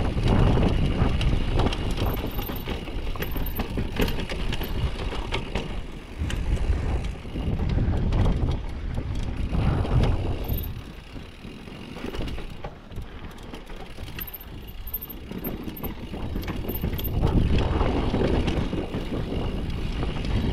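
A downhill mountain bike rattling and clattering over a rough dirt trail at speed, with a steady rumble and many sharp knocks from the bike. It eases off for a few seconds past the middle, then picks up again.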